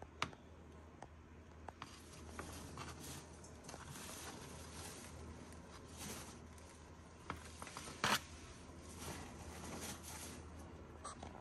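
Snapping turtle snapping at and tearing food held in kitchen tongs in shallow water: scattered sharp clicks and small wet sounds, the loudest click about eight seconds in, over a steady low hum.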